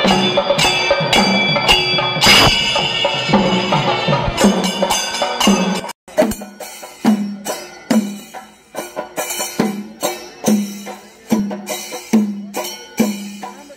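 Music with percussion: held melodic tones over rapid drum strokes, then after a sudden break about six seconds in, a steady pitched drum beat of a little under two strikes a second.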